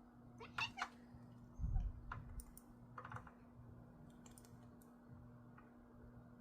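A few scattered light clicks and taps, with a soft thump about a second and a half in, over a faint steady hum.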